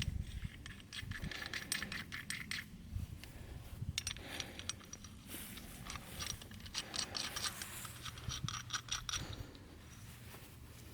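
Small metal hose fittings clinking, rattling and scraping against each other and the catch can as they are handled and threaded in by hand, in clusters of sharp clicks.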